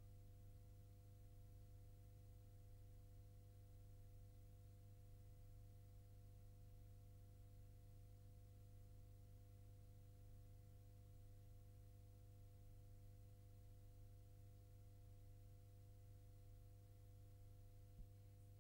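Near silence: a faint steady low hum with a few faint held tones, and one small click near the end.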